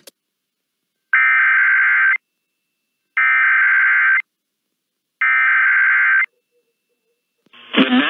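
Emergency Alert System SAME header tones over a radio broadcast: three identical screeching digital data bursts, each about a second long with a second's pause between, marking the start of a new emergency alert.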